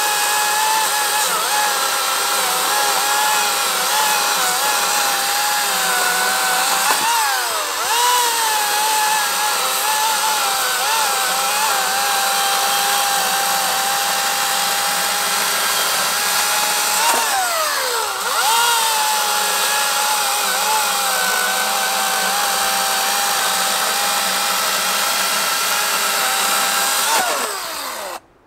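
Atlas 80V cordless brushless chainsaw cutting rounds off a log: a steady electric motor whine with chain noise. Its pitch dips and climbs back twice, and the saw stops abruptly near the end.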